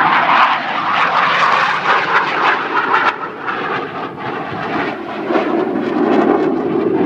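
Yak-130 jet trainer's twin turbofan engines, loud as the aircraft flies by in a display. Near the end the noise drops lower in pitch as it passes.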